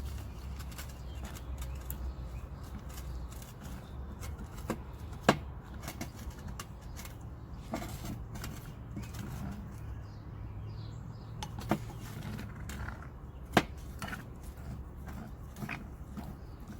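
A spoon stirring thick cornstarch slime in a mixing bowl, with scattered clicks and taps of the spoon against the bowl. Three sharper knocks stand out: one about five seconds in and two more near twelve and fourteen seconds.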